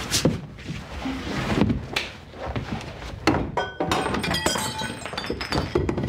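Scuffle of a staged struggle: repeated thuds and bumps of bodies against the wall and furniture. From about halfway on, knocked-over objects clatter and clink.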